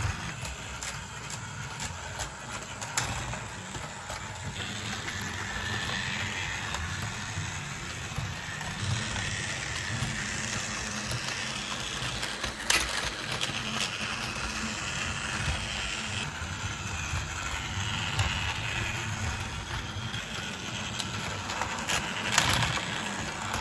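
Small battery-powered toy motor running steadily as plastic toy vehicles travel along their track, with a few sharp clicks.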